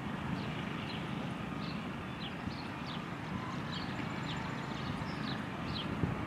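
Wind buffeting the microphone with a low rumble, while a small bird chirps over it in short, high, falling notes about twice a second.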